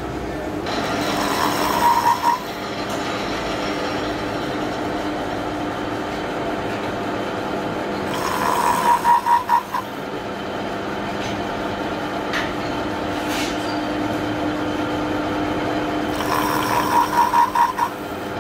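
Milling machine running with a steady hum while its spinning cutter cuts a round handle blank. Three times a louder, pulsing cutting sound at about five beats a second rises over the hum for a second or two.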